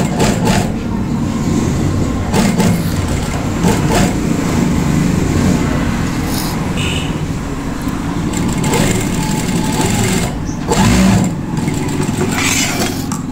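Industrial single-needle sewing machine stitching cloth, its motor humming steadily with a few short, louder stretches of sewing.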